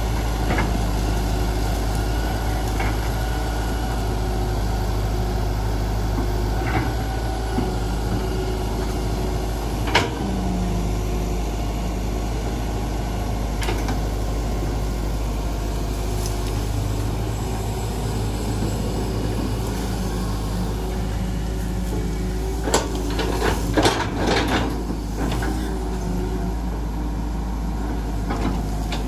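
Hitachi EX120 hydraulic excavator's diesel engine running steadily as the machine works, with a sharp knock about a third of the way in and several more knocks near the end.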